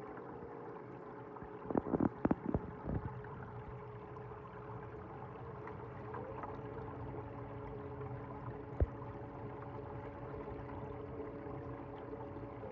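Reef aquarium pumps humming steadily over a faint water gurgle, one hum rising a little in pitch about six seconds in. A few sharp knocks come about two seconds in, and a single click near nine seconds.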